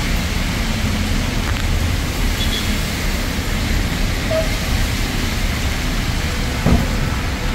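Steady road traffic on wet pavement: vehicles passing with a continuous tyre hiss, and one short knock near the end.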